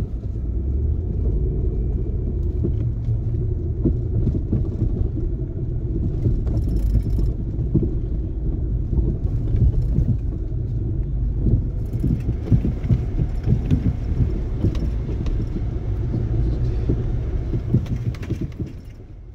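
Vehicle cabin noise from driving on a snow-covered track: a steady low engine and tyre rumble with many small clicks and rattles, busier in the second half, fading out near the end.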